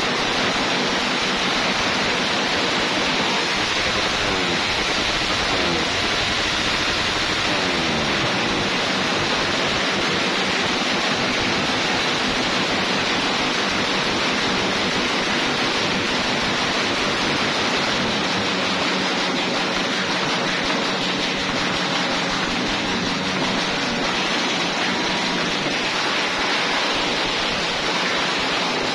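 Motorcycle with an aftermarket exhaust pipe revved hard and held at high revs in a loudest-exhaust contest, a steady, deafening blast of exhaust noise. A few rising and falling revs can be heard in roughly the first nine seconds.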